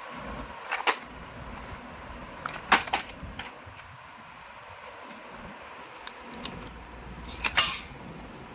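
A pack of slate pencils being handled and unboxed: a few sharp clicks and short clatters, with three louder clusters about a second in, near three seconds and about seven and a half seconds in.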